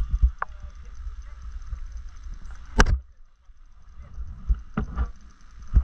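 A few sharp knocks over a low rumble, the loudest nearly three seconds in.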